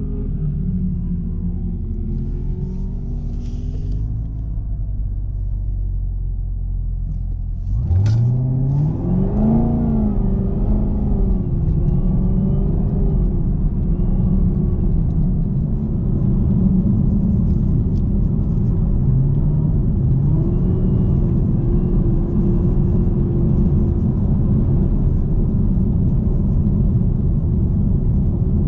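Chevrolet Camaro ZL1's supercharged 6.2-litre V8 running steadily at first, then about eight seconds in it opens up hard, the revs climbing sharply, and it carries on pulling with the revs rising and falling.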